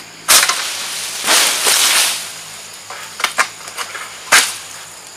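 Palm King Long Ultra egrek (long-poled harvesting sickle) hacking at oil palm fronds: a sharp snapping cut about a quarter second in and another near four and a half seconds, with a rustling crash of palm leaves about a second in and a few small cracks between.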